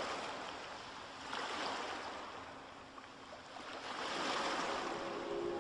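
A rushing, surf-like noise that swells and fades in slow waves every two or three seconds, with sustained music notes coming in near the end.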